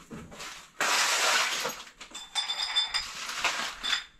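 Small hard objects clinking and clattering as a box of odds and ends is rummaged through. It starts with a sudden loud rustle about a second in, followed by a few short ringing clinks.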